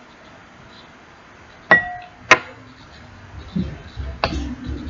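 Two sharp clinks about half a second apart, the first with a short ring, then a softer knock near the end: hard craft containers or utensils knocked together while slime-making supplies are handled.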